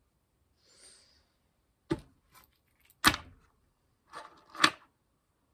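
Fidget toys being handled and set down: a few sharp knocks and clicks, the loudest about three seconds in and a quick pair near the end, with a faint rustle about a second in.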